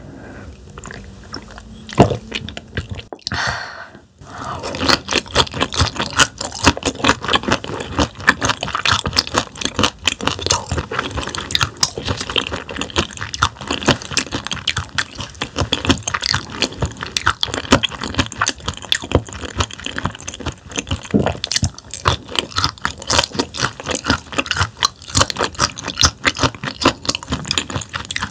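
Close-miked chewing of raw damselfish sashimi sliced thin with its tough bones left in: irregular wet crunching and crackling, with one sharp click about two seconds in and a dense run of crunches from about four seconds on.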